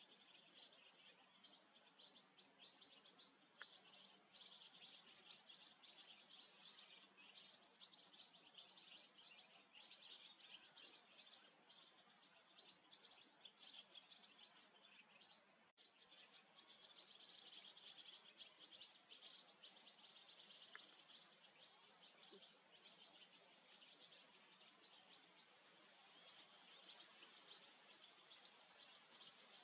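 Barn swallows twittering: a faint, fast, continuous run of short high chirps and warbles, with a brief break about halfway through.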